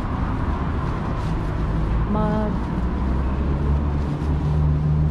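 Street traffic: a steady low rumble from road vehicles, swelling near the end as one passes close. A brief pitched tone sounds about two seconds in.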